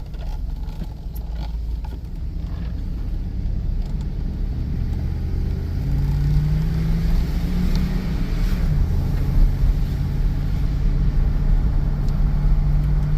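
2002 Chevrolet Tahoe's V8 engine and road noise from inside the cabin while driving, a steady low drone that grows louder about six seconds in as the truck picks up speed. The engine runs without misfiring now that the broken, chewed wiring has been fixed.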